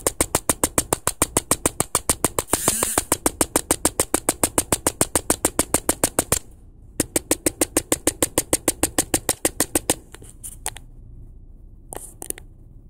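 Rapid, even clicking at about six or seven clicks a second, breaking off briefly about six seconds in, running on until about ten seconds, then a few scattered clicks.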